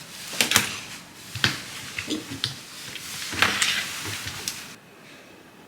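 Several short rustles and light knocks, as of something being handled, that cut off abruptly near the end.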